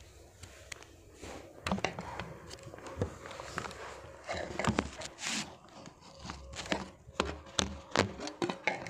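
Scattered sharp clicks, taps and short rustles, an irregular handling noise close to the microphone.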